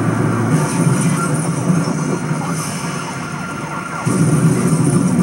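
Police car siren wailing over engine and road noise, heard through a television speaker; the sound jumps louder about four seconds in.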